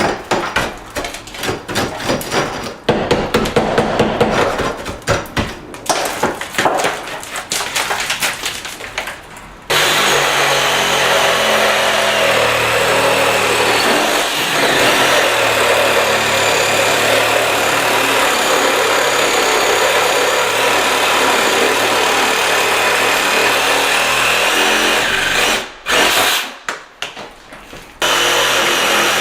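Repeated sharp knocking and chipping at ceramic bullnose border tile for about ten seconds, as the tile is broken out. Then a power tool runs steadily, stops for a few more knocks near the end, and starts again.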